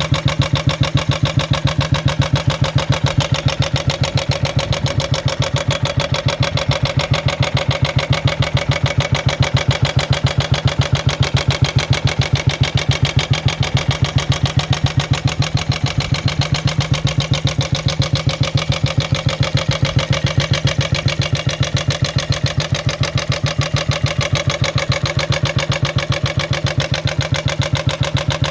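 AWO 425 motorcycle's single-cylinder four-stroke engine running at a steady idle with an even beat. It has a clattering rattle that the owner flags as a fault.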